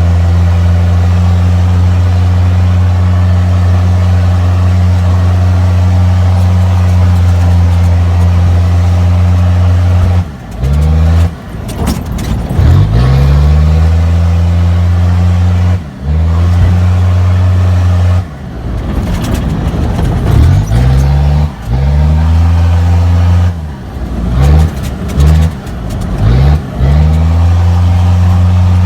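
Kia Sportage 4x4's engine pulling at steady revs off-road, a loud even drone. Several times the throttle is lifted briefly and the revs dip, then climb back.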